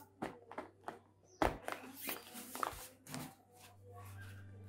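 Paper rustling and crinkling, with light taps and clicks, as hands work a paper-wrapped ball and a grid of rods, and one sharp knock about a second and a half in. A low steady hum comes in near the end.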